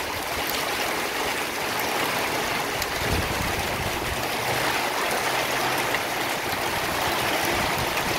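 Hail pelting down in a steady hiss, with many small sharp ticks of hailstones striking.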